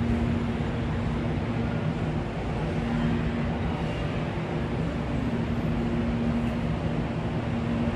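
Steady railway-station rumble with a constant low electric hum, from a CPTM electric commuter train and the tracks around it.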